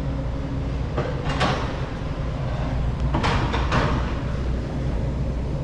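Street background noise: a steady low rumble, with two brief swishing noises about a second in and again around three seconds in.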